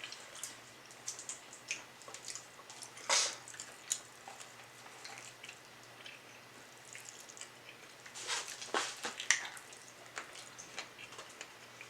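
Close-miked eating of fried chicken: wet chewing and lip-smacking in short scattered clicks, louder about three seconds in and again in a cluster around eight to nine seconds.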